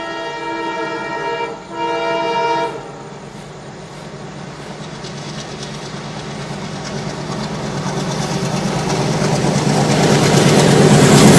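ALCo diesel locomotive's multi-tone horn blowing, broken by a brief gap and cut off about three seconds in. Then the train's engine and wheels grow steadily louder as it approaches.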